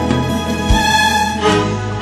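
Instrumental backing track of an Azerbaijani pop song, with no lead vocal: bowed strings holding a melody over a regular kick-drum beat.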